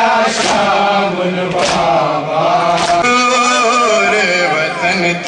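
A man reciting a noha, a Shia mourning elegy, in a wavering chanted melody. Three sharp slaps land about a second apart in the first three seconds.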